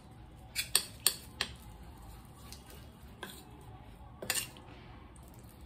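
Metal spoon clinking and scraping against a stainless steel bowl while stirring flour and water into a batter. There are several sharp clinks: a cluster in the first second and a half, and a few more around three and four seconds in.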